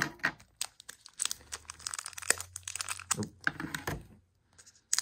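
Foil Pokémon booster pack wrapper crinkling and tearing as it is handled and ripped open, in scattered sharp crackles that stop about four seconds in.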